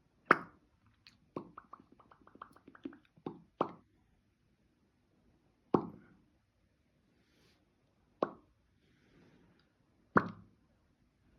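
A series of sharp popping sounds made by a person to get a cat's attention: one loud pop, then a quick run of about a dozen smaller pops, then single pops every two to three seconds.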